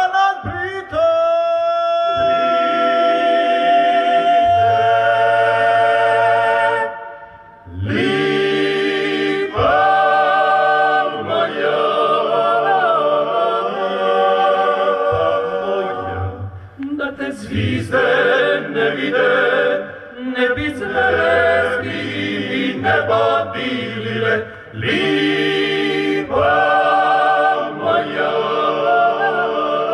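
A male klapa ensemble singing a cappella in close multi-part harmony, with long held chords and a short break between phrases about seven and a half seconds in.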